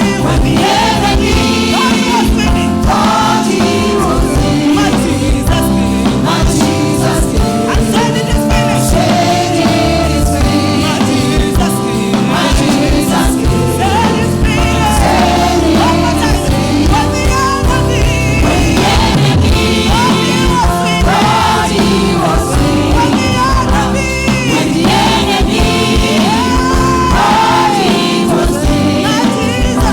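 Live gospel music: a choir and singers over steady instrumental accompaniment with a strong bass.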